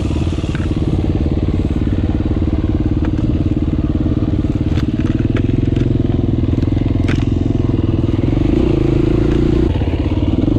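KTM 350 single-cylinder four-stroke dirt bike engine running at low trail-riding revs, with a few sharp clicks along the way. The revs rise briefly about eight and a half seconds in, then drop back.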